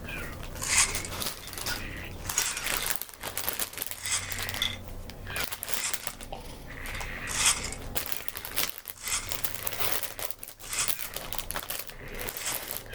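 Plastic packaging crinkling and rustling in irregular bursts as it is handled and rummaged through.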